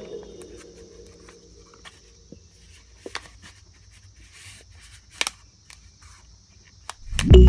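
Background music cuts off. A few faint, scattered clicks and light taps follow over a soft high hiss, then the music comes back near the end.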